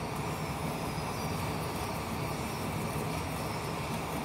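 Wire whisk beating thick gram flour batter in a stainless steel bowl, a steady scraping and stirring over a low background hum.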